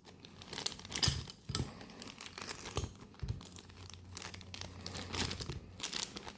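Packaging crinkling and rustling as the parts of a small model jet kit are unpacked and handled, with a few light knocks of the parts.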